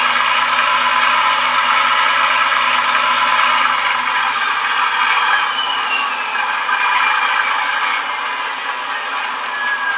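Diesel engine sound of a Class 37 locomotive, the English Electric V12, played by a LokSound v5 sound decoder through the small speaker of an OO gauge model running on a rolling road, with the model's motor and gears whirring under it. The sound eases down after about five seconds, with a thin falling squeal about halfway through and another near the end.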